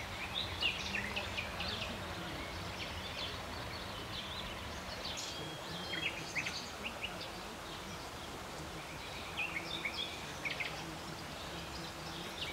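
Small birds chirping in short clusters of quick, high notes, over a steady low background hum.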